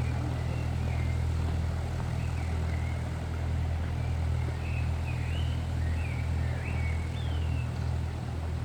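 A narrowboat engine running with a steady low rumble, with small birds chirping over it.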